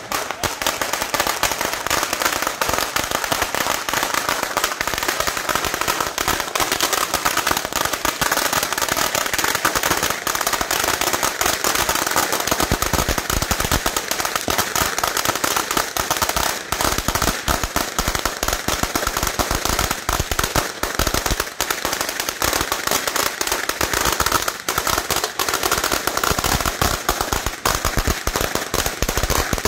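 A long string of firecrackers going off in rapid, continuous pops.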